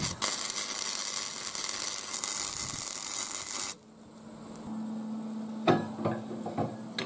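Welding arc crackling and hissing as a bead is laid on steel, with a brief break just after the start; it stops suddenly about four seconds in. A few light clicks and knocks follow near the end as the welded steel arm is moved by hand.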